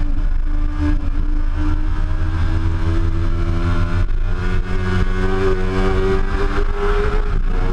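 Suzuki GSX-R750 K2's inline-four engine at high revs under full acceleration, heard from on board, with an upshift about four seconds in after which the engine note climbs again.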